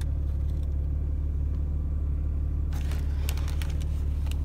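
Steady low rumble of a car idling, heard inside the cabin. From about three seconds in, light clicks and rattles as the sneaker and its metal ball-chain hang tag are handled.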